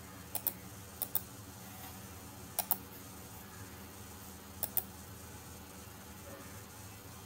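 Computer mouse button clicked four times, each click heard as a quick double tick of press and release, over a faint steady hiss.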